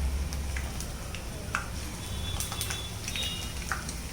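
Chicken balls frying in hot oil in a pan: scattered irregular crackles and pops over a low steady hum.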